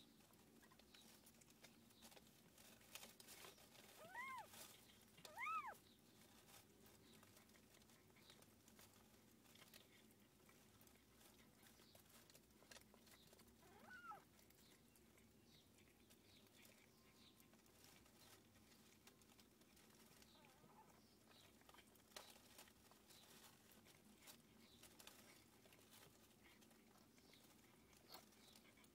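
Three short, high-pitched cat mews, two close together about four and five and a half seconds in and a falling one about fourteen seconds in. Faint ticks and rustles sound in between.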